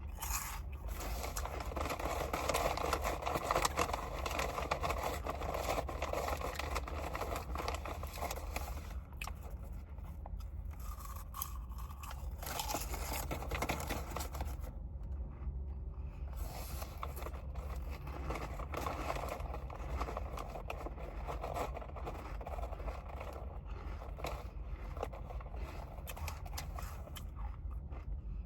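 Close-up eating sounds: a person chewing noodles, dense crackly clicking mouth noises in long stretches broken by two short pauses.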